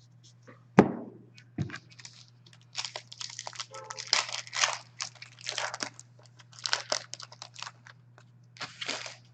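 Two sharp thumps near the start, then the foil wrapper of a hockey card pack being torn open and crinkled in several crackly bursts.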